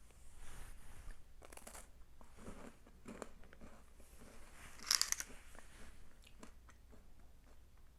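Biting into and chewing a thin, crisp baked cookie: a series of dry crunches, the loudest about five seconds in.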